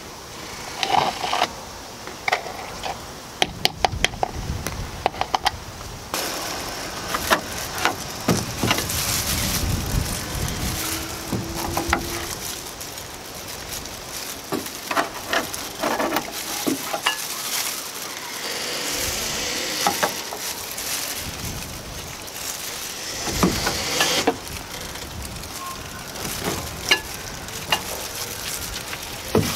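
A wooden stick stirring thick epoxy paste in a plastic tub, scraping and clicking against its sides, then a putty knife scraping the paste out and spreading it along a wooden edge. The scraping is irregular, with many sharp clicks.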